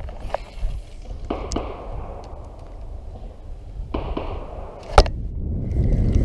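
Spinning rod and reel being worked: a few swishes and light knocks, then a sharp click about five seconds in as the hook is set on a bass. Right after it, the reel is cranked fast with a steady thin whine.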